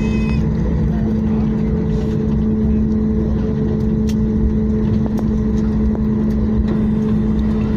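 Steady cabin noise inside a Boeing 737 MAX 8 moving on the ground after landing: a constant hum at two steady pitches over a low rumble.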